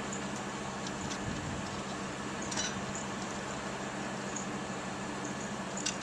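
Steady low background hum, with two faint short clicks: one about two and a half seconds in and one near the end.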